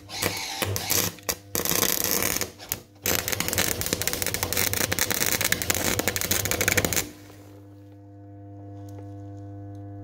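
Telwin Bimax welder's arc crackling and spitting in bursts with short breaks, stopping about seven seconds in. After that the welder's steady transformer hum is left.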